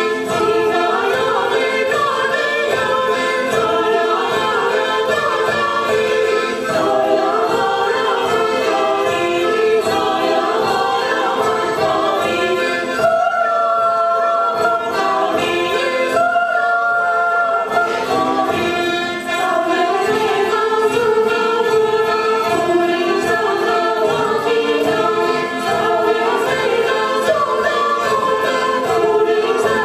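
Choir singing a Latvian folk dance song as music for the dance, with a steady beat and some long held notes about halfway through.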